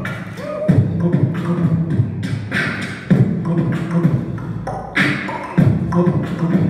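Beatboxing: a vocal beat with deep booms about every two and a half seconds, sharp hissing hits between them and quick ticks throughout, over a buzzing bass line.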